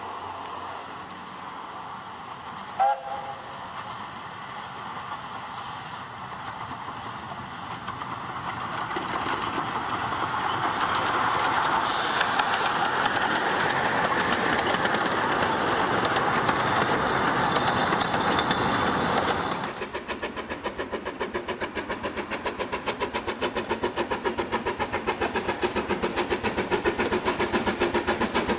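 A narrow-gauge steam locomotive gives a short whistle about three seconds in, then approaches and runs past, growing steadily louder. After an abrupt change, a main-line steam locomotive hauling a train takes over with a rapid, even exhaust beat.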